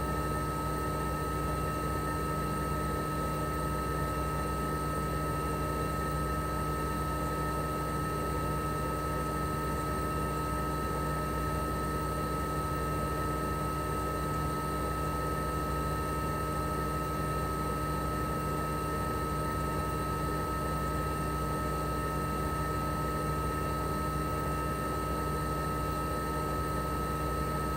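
Toshiba RAS-285BAD mini-split outdoor unit running steadily in cooling mode: its twin rotary compressor and propeller fan make a smooth, even hum, with a steady high-pitched whine above it.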